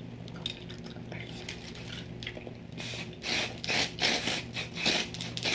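Drybar Hot Toddy heat protectant pump spray bottle misting onto hair: several quick hissing spritzes in a row, starting about three seconds in, after a few faint clicks.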